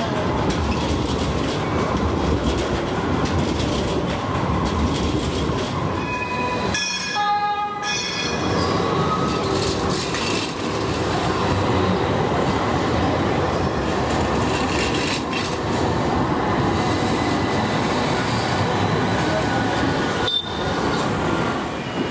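Modern electric trams running past close by on street rails: a steady, loud rumble of wheels and motors over city traffic noise. A brief high-pitched wheel squeal comes about six to eight seconds in, and the sound cuts off abruptly for a moment twice.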